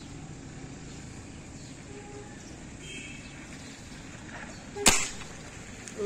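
A single sharp gunshot from a hunting gun about five seconds in, fired at doves in a tree. Before it, only a faint steady outdoor background.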